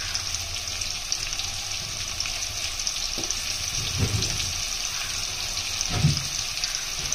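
Sliced onions and slit green chillies frying in hot sunflower oil, a steady sizzle with fine crackling. Two dull knocks come about four and six seconds in.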